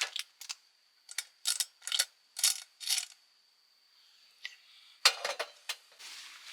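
Clams and metal cooking utensils clinking in cookware: a run of short sharp clinks in the first three seconds, then a burst of clattering about five seconds in.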